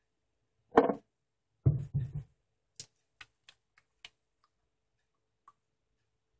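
Handling noise from objects on a tabletop: a sharp knock about a second in, a quick run of heavier knocks soon after, then a few scattered light clicks.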